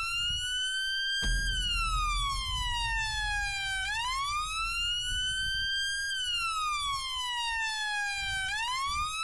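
Siren sound effect wailing slowly, its pitch climbing and falling in long sweeps about every five seconds, with a deep thud about a second in followed by a low rumble.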